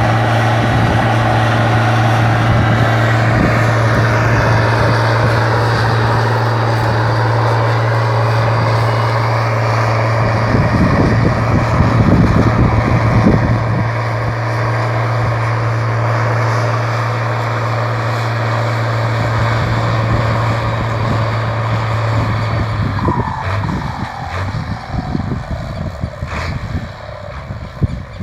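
Valtra BH 180 tractor's turbocharged diesel engine running loud at steady high revs, with a stretch of louder rushing noise near the middle. About four-fifths of the way through the steady engine note stops, leaving quieter, uneven noise.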